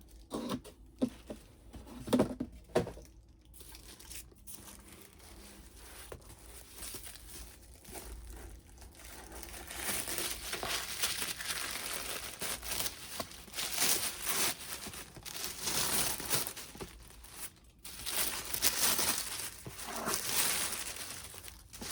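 Packaging handled and torn open: a few sharp knocks in the first three seconds, then continuous crinkling and rustling from about ten seconds in.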